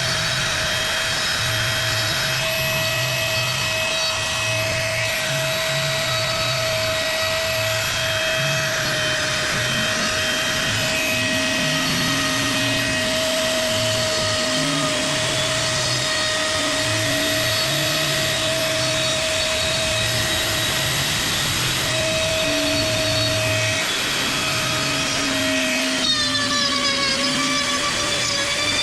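An electric power tool working wood, its motor whining steadily at one pitch over a rough grinding noise; the whine wavers briefly a few seconds before the end.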